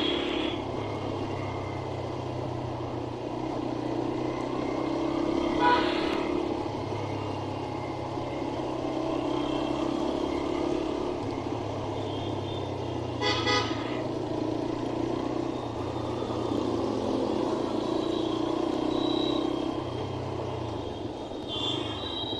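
Steady vehicle engine and road noise while travelling through traffic, with horns honking briefly near the start and again near the end, and two short knocks in between.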